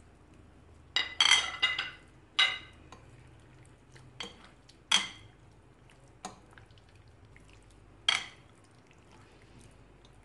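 Metal fork clinking against a glass mixing bowl while stirring chicken strips through a wet egg batter: sharp ringing clinks at irregular intervals, a quick cluster about a second in, then single clinks every second or two.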